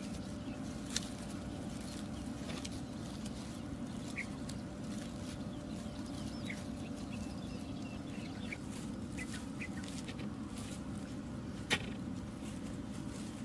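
Outdoor ambience: a steady low rumble with a few faint, short bird chirps scattered through it, and a sharp click about a second in and another near the end.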